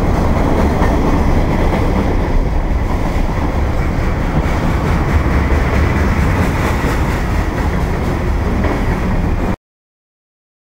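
Manifest freight train's boxcars and covered hoppers rolling past close by: a loud, steady rumble of steel wheels on rail that cuts off suddenly near the end.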